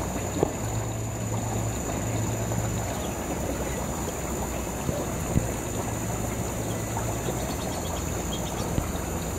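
Steady background noise of aquarium filtration: water trickling over a low hum, with a faint high whine and a couple of soft clicks.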